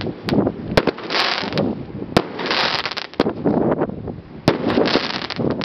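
Aerial fireworks going off: a string of sharp bangs from bursting shells, several a second or so apart, with stretches of crackling between them.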